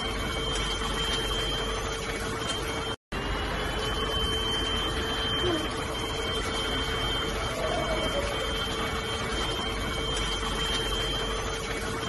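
Cordless stick vacuum running steadily: a constant airflow hiss with a high, even motor whine. It cuts out for a split second about three seconds in, then runs on unchanged.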